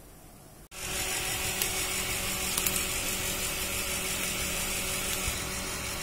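Chicken pieces sizzling in a frying pan once the cooking liquid has boiled off: a steady hiss with a few crackles over a faint steady hum. It starts abruptly less than a second in.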